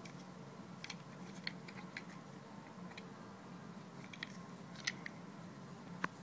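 Faint, irregular small clicks and light taps of caster-wheel hardware being handled and threaded onto the feet of an office cubicle panel, over a low steady hum.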